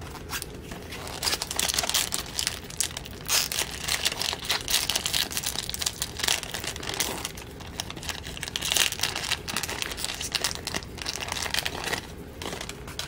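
A trading-card pack wrapper being torn open and crinkled in the hands, with a steady run of irregular crackling and rustling.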